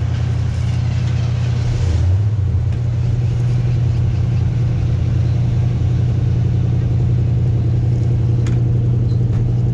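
Motor scooter engine running steadily, a loud, even low drone.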